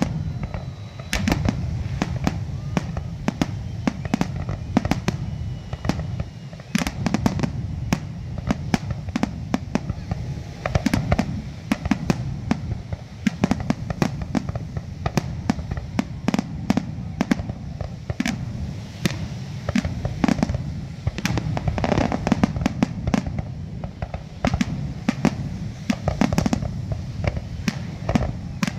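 Fireworks display: a dense, unbroken run of sharp bangs, several a second, over a steady low rumble.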